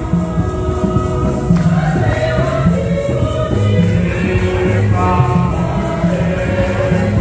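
A church choir singing a gospel hymn over a bass accompaniment that steps between low notes.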